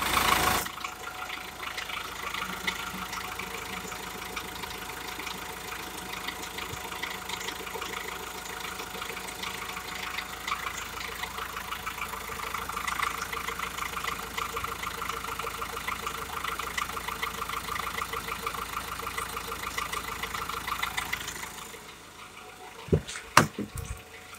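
Nissan Navara NP300's 2.3-litre twin-turbo four-cylinder diesel engine idling steadily. The engine sound drops away about 22 seconds in, followed by a few sharp knocks near the end.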